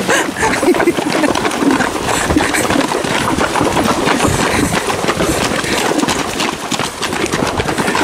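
Tennessee Walking Horse's hooves splashing and clattering through a shallow, rocky stream at a quick gait: a steady, dense run of splashes and knocks.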